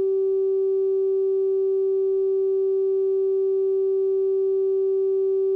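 A single steady electronic tone held on one mid pitch without change: the line-up tone laid under a TV station's 'commercial insert' slate, marking the spot on the tape where commercials go.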